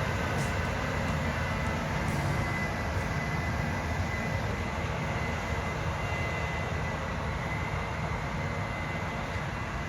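Combine harvester running steadily while harvesting dry field corn: a constant mechanical drone with a faint high whine over it.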